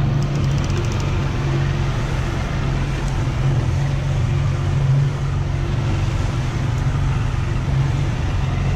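A 150 hp outboard motor running steadily at trolling speed, a constant low engine hum over the rushing hiss of the boat's wake.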